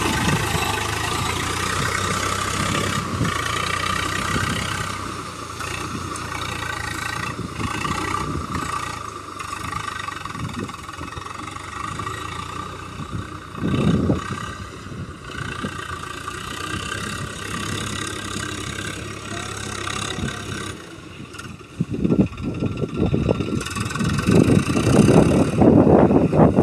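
Swaraj 744FE tractor's three-cylinder diesel engine running steadily while pulling a cultivator. Near the end, louder, uneven noise comes in over it.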